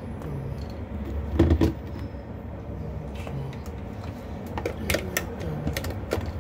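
Handling noise from a plastic clip-on electric fan and its cord: a thump about a second and a half in, then a few sharp plastic clicks and knocks near the end, over a steady low rumble.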